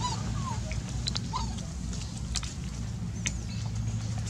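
Macaques giving a few short, wavering squeaks in the first second and a half, with a couple of sharp clicks later, over a steady low hum.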